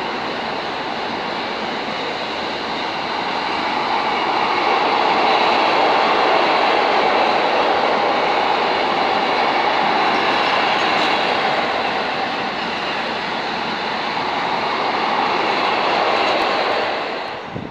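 Wagons of an intermodal freight train loaded with trailers and swap bodies rolling past, a steady loud rush of wheels on rail. It falls away abruptly near the end as the last wagon clears.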